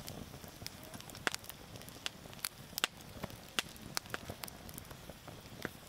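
Split firewood burning in a campfire, crackling with irregular sharp pops over a low, steady rush of flame.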